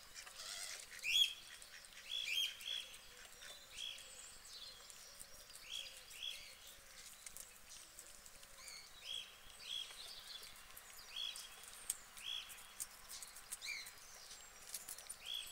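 Small birds chirping: short, high chirps repeated about once or twice a second, with faint clicks of guinea pigs chewing lettuce underneath.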